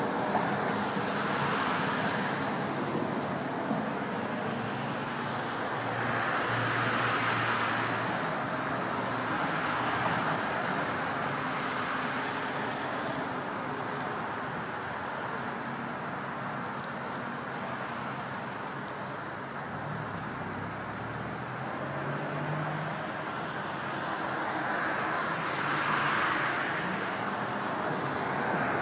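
Steady rumble of road traffic, with passing vehicles swelling and fading several times.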